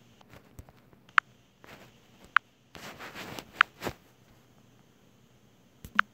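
Four short, sharp clicks: three about a second apart, then one more a couple of seconds later, with a brief rustle between the second and third. These are taps on a smartphone touchscreen.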